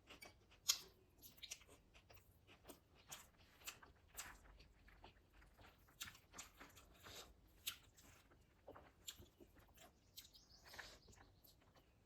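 A person eating close to the microphone: quiet, irregular crunches and chewing clicks, several a second, from a meal of chicken biryani and salad. The sharpest crunch comes just under a second in.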